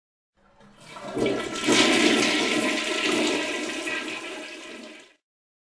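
Rushing water sound that swells over about a second, slowly fades, and is cut off abruptly.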